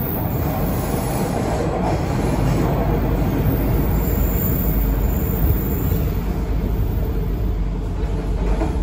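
A TTC Line 2 subway train running at speed, heard from inside the car: a steady rumble of wheels on rails, with a faint high whine about four to six seconds in.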